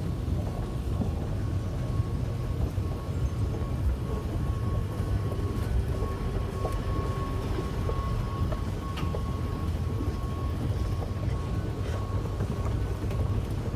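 Dubai Metro train running, heard from inside the carriage: a steady low rumble with a thin constant whine above it and a few faint clicks.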